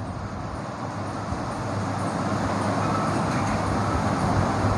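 Steady rumbling background noise, slowly growing louder.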